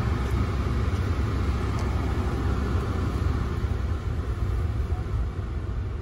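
Steady low rumble of a car driving slowly, heard from inside the cabin: engine and tyre noise.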